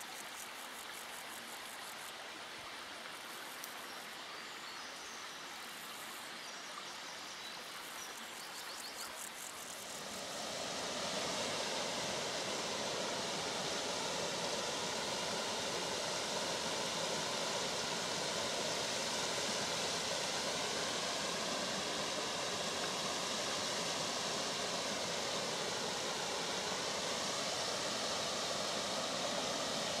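Small forest brook running: for the first stretch a soft, even trickle with faint rapid high ticking above it, then about ten seconds in it swells into a louder steady rush of water spilling over low stepped cascades.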